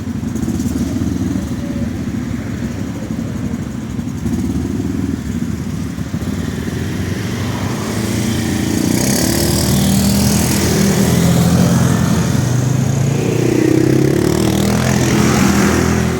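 ATV engine running as it rides off, growing louder about halfway through.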